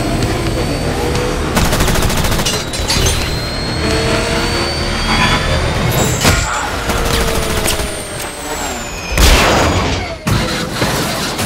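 Action-film chase soundtrack: a heavy vehicle rumble with whining jet-bike engine passes gliding up and down in pitch, rapid gunfire about a second and a half in, and a loud crash about nine seconds in.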